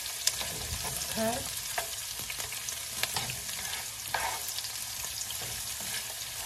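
Diced green bell peppers sizzling in oil in a frying pan, stirred with a spatula that scrapes and clicks against the pan now and then over a steady hiss.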